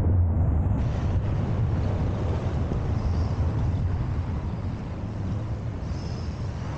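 Steady low wind rumble on the microphone of a camera mounted on a moving electric bike, with road noise underneath.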